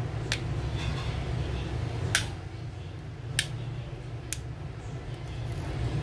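Metal tweezers clicking against a phone's frame and loudspeaker assembly as the parts are prised apart: four short sharp clicks, the loudest about two seconds in, over a steady low rumble.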